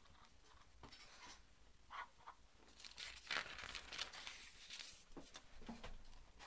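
Paper rustling as a page of a spiral-bound graph-paper notebook is lifted and turned over, after a few small clicks. The rustling is the loudest part, from about halfway through.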